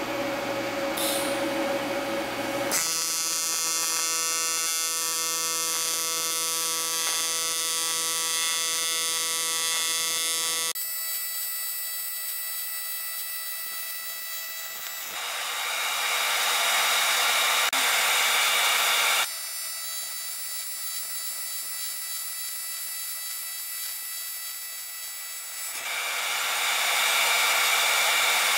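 AC TIG welding arc buzzing steadily as a bead is laid on aluminium with filler rod. The buzz changes tone and loudness abruptly several times.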